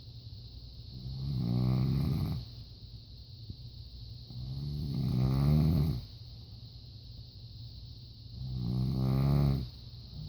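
A woman snoring in her sleep: three rasping snores about four seconds apart, each swelling over a second or so and then breaking off abruptly.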